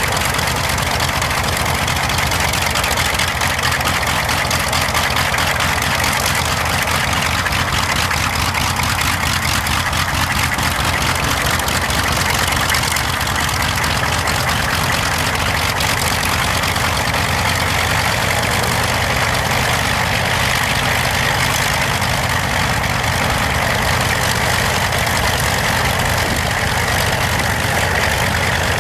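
The Bristol Hercules sleeve-valve radial engines of a Bristol Freighter run steadily on the ground, turning the propellers, with no change in pitch.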